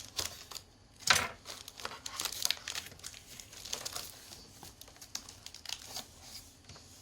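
Packaging crinkling and rustling in irregular short bursts as a boxed figure is unwrapped, the loudest crackle just after a second in.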